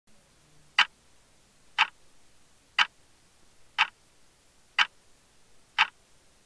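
Clock ticking: six sharp, evenly spaced ticks, one a second.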